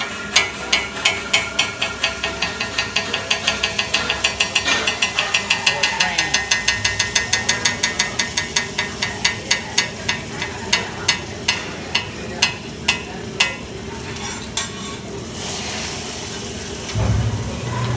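Metal hibachi utensils clacking rhythmically against the steel teppanyaki griddle, starting slow, speeding up to about five strikes a second, then slowing to single strikes. Near the end a steady sizzling hiss sets in off the hot griddle, with a thump shortly before the end.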